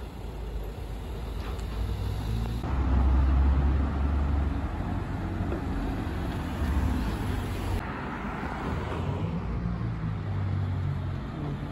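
Police cars pulling away and driving past close by, engine and tyre noise swelling and fading. It comes in three short clips, with abrupt changes about two and a half seconds and eight seconds in.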